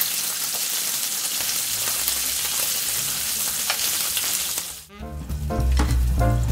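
Thin slices of marinated beef sizzling steadily as they fry in oil in a nonstick pan. The sizzle cuts off just before five seconds in and music starts.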